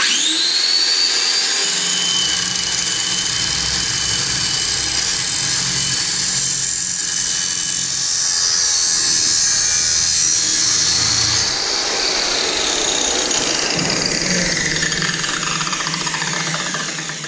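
Makita GA9020 9-inch angle grinder, freshly rebuilt with a new bearing, spinning up with a rising whine, then cutting into a metal pipe held in a vise, louder and harsher while it bites in. Near the end the motor is released and the whine falls away as the disc spins down.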